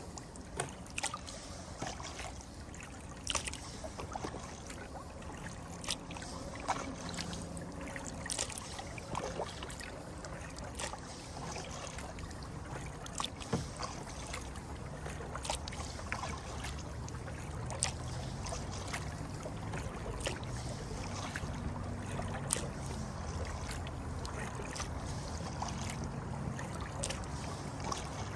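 Kayak paddling on a river: the paddle blades dip and drip with small, irregular splashes and light knocks, over a steady low rumble that grows a little louder in the second half.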